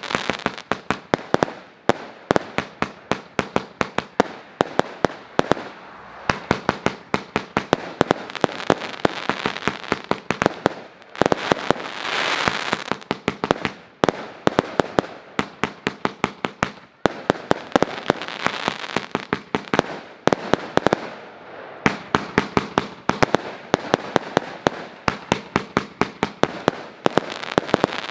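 Krudtkongen Partybox 3 consumer fireworks battery firing: a fast string of sharp shots and bursts, several a second, in volleys with brief lulls every few seconds. About twelve seconds in, a thicker hissing crackle of crackling stars comes through.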